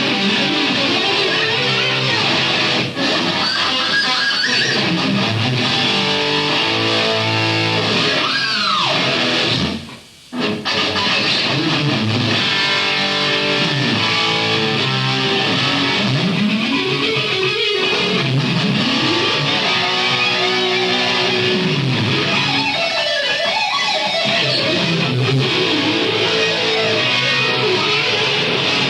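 Electric guitar playing fast lead runs, with a swooping pitch bend about eight seconds in and a short break about ten seconds in.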